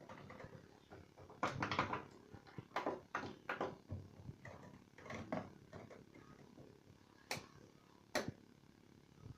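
A series of irregular knocks and sharp clicks, with two crisp single clicks near the end.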